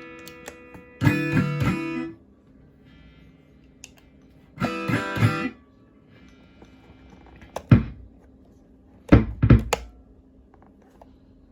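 Guitar played through a NUX Time Force delay pedal: two short strummed chords that stop dead with no echo repeats, because the pedal is switched on but its delay is not working. A few sharp thumps follow in the second half.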